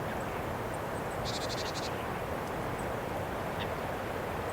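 Japanese tit giving one short run of rapid high notes, about a second and a half in, like its chattering "jiji" call. A steady background noise runs beneath it.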